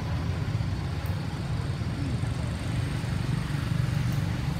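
Motorbikes and other road traffic passing, a steady low rumble.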